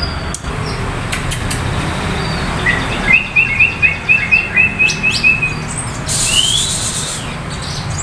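Caged songbirds chirping: a quick run of about a dozen short chirps starting about three seconds in, then a single rising whistle, with scattered other calls.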